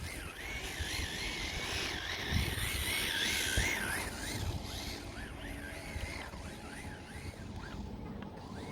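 Rebuilt Ken Block RC car's motor whining, its pitch wavering up and down quickly as the throttle is worked, loudest a few seconds in and then easing off, over a hiss of tyre and surface noise.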